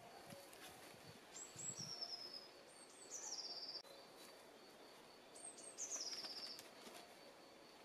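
A songbird singing three short phrases, each a couple of high notes running into a fast, slightly falling trill, over quiet woodland background with a faint steady high tone.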